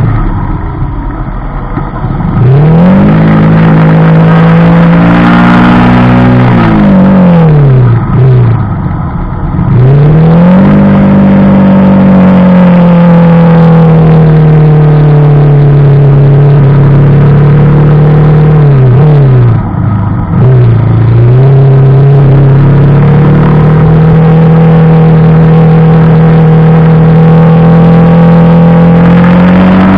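Yamaha Vixion Advance's 150 cc single-cylinder four-stroke engine running through a B-Pro5 Alpha Edition aftermarket exhaust while riding. It is uneven at first, revs up about two seconds in, falls away around eight seconds in, then climbs again and holds a steady cruising note, with a brief dip and pick-up about twenty seconds in.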